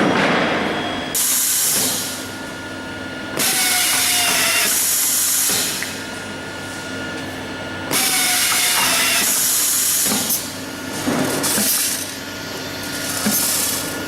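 Fom AF1 automatic screwdriving machine for PVC window reinforcements at work: loud hissing bursts of one to two seconds repeat every few seconds, some with a whirring tone under them, over a steady machine hum.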